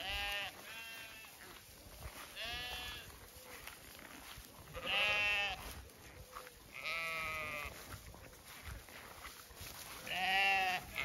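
Zwartbles sheep bleating, about six separate calls spaced a second or more apart, the loudest about five seconds in and another strong one near the end.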